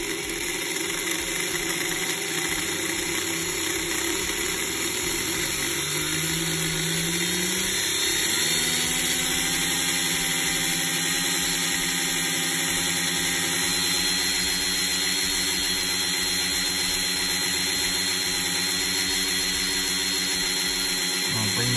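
Scalextric Porsche 917K's Spanish-made RX electric slot-car motor running free with the rear wheels lifted. Its whine climbs in pitch over the first eight seconds or so as the voltage is slowly raised, then holds steady at the higher speed, running smoothly.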